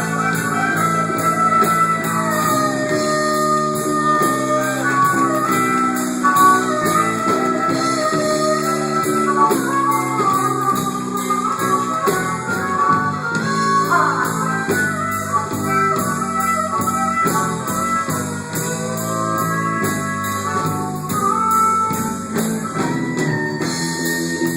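Band music with guitar and drums: a repeating chord pattern under a wavering lead melody.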